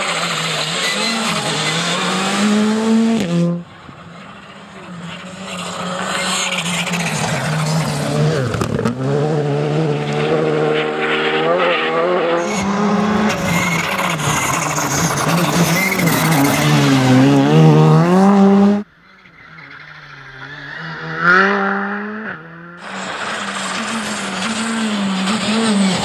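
Škoda Fabia R5 rally cars' turbocharged four-cylinder engines revving hard, each pass rising in pitch and dropping back at every gear change. The sound cuts off abruptly three times between passes.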